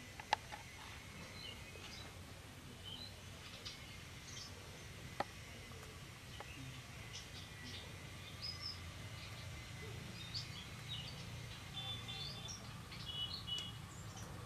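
Small birds chirping: scattered short calls, with a quick run of repeated notes near the end, over a low steady hum. Two sharp clicks stand out, one right at the start and one about five seconds in.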